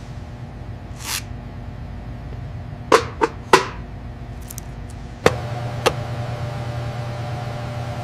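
Sharp clicks and taps of a glass dome being set over a scorpion on a lab bench, three close together about three seconds in and two more a little after five seconds, over a steady equipment hum. A short whoosh comes about a second in.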